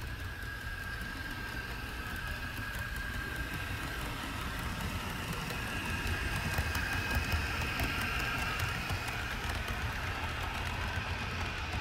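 HO-scale model train running on its track: a steady low rumble of wheels on rail with a faint high motor whine and small clicks, growing louder as the locomotive and boxcars pass close, loudest around six to eight seconds in.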